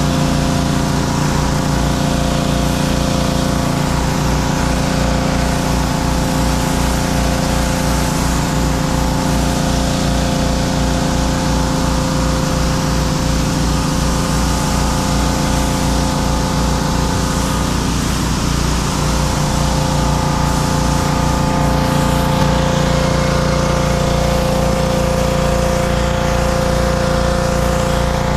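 Gas-engine pressure washers running steadily, with the hiss of high-pressure water spraying onto concrete.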